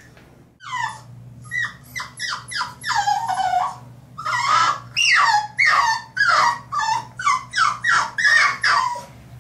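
French Bulldog puppy whining: a long series of short, high, falling whines, about two a second, starting about half a second in, a puppy's plea to be let out of the bathtub.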